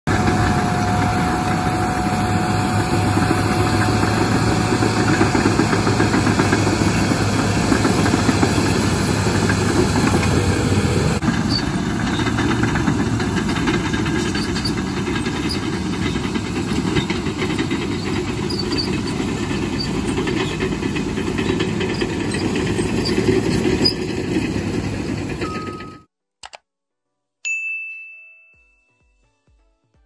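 Caterpillar D5R2 XL bulldozers' diesel engines running under load as they push earth with their blades. The sound cuts off abruptly near the end, followed by a click and a short chime that rings away.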